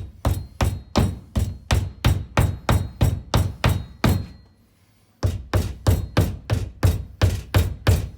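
Hammer tapping plastic wall anchors into drilled holes, rapid even strikes about four a second, with a brief pause about four seconds in before the strikes resume.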